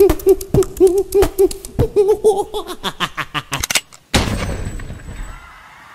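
A cartoon villain's rhythmic 'ha-ha-ha' laugh, repeated pitched syllables for about three seconds. A quick run of clicks follows, then a single loud gunshot sound effect about four seconds in that fades away over a second.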